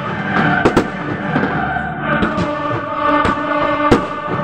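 Choral music playing with aerial fireworks bursting over it: several sharp bangs, the loudest near the end.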